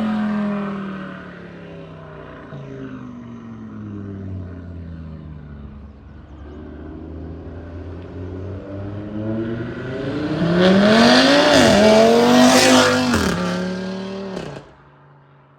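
Audi RS3 8Y's turbocharged 2.5-litre five-cylinder engine running through catless downpipes and a valved race exhaust. The engine note first falls and quietens, then climbs steeply under hard acceleration, with a brief break for a gear change. It is loudest about three quarters of the way through, then falls away and cuts off sharply near the end.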